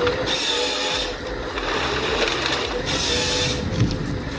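A forestry machine running with a steady mechanical tone, broken twice by a short burst of harsh, high-pitched noise about two and a half seconds apart.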